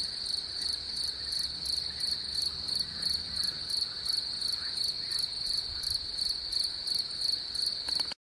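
Crickets chirping on a spring evening: one steady high trill, with a second, higher insect pulsing about three to four times a second over it. The sound cuts off abruptly at the very end.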